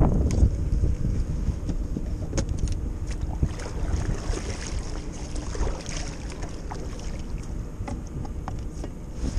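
Kayak moving through current: water lapping and splashing against the hull, with low wind rumble on the microphone that is loudest near the start and scattered light clicks throughout.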